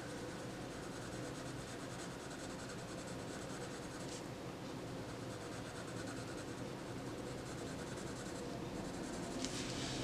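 Prismacolor colored pencil shading on a colouring book page: a soft, steady scratching of quick, short strokes.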